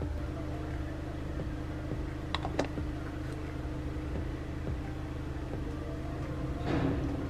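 A steady low hum, with two light clicks a little over two seconds in and a short rustle near the end, as small plastic and chrome model-kit wheel parts are handled.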